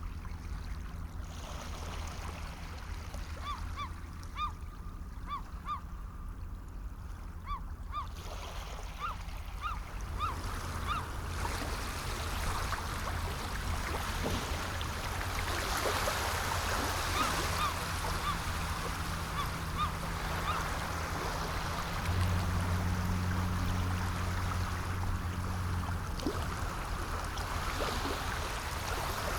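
Water washing and splashing, with a run of short honking bird calls, several a second, during the first third. A steady low hum runs underneath.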